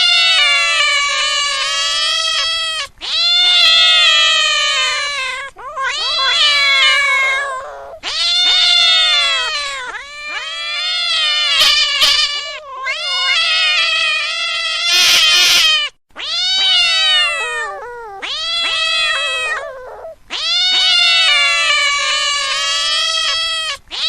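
Cats meowing: about eight long, drawn-out meows in a row, each lasting two to three seconds, with brief breaks between them.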